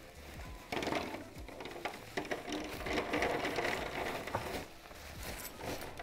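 Horse chestnuts being poured into a container: a rattling clatter of many nuts knocking together, starting about a second in and easing off after about four and a half seconds, then a few scattered knocks.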